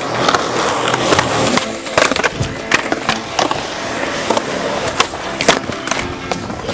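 Skateboard rolling on concrete, its wheels rumbling, with several sharp clacks as the deck and tail hit the ground.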